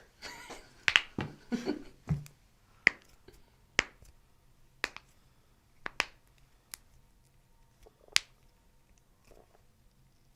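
Finger knuckles cracking, about a dozen sharp pops one after another: several close together in the first two seconds, then spaced roughly a second apart, the last about eight seconds in.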